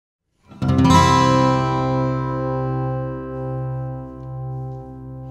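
Background music: a guitar chord strummed about half a second in and left to ring, slowly fading.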